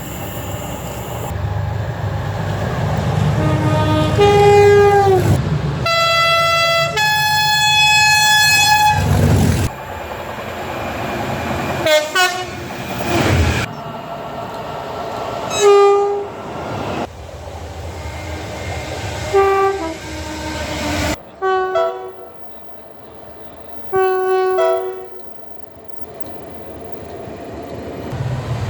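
A series of British train horn blasts from several trains: long two-tone blasts on the high and low notes, and many short toots. One horn falls in pitch as its train passes, with the rumble of the train going by underneath.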